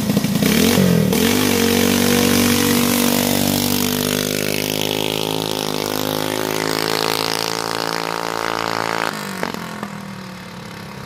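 Jr dragster's single-cylinder engine revving up sharply, then holding a steady high drone that slowly fades as the car pulls away. The engine sound cuts off suddenly about nine seconds in.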